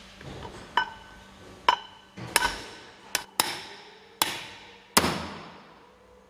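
Hammer blows on metal: about seven sharp, irregularly spaced strikes, each leaving a short metallic ring.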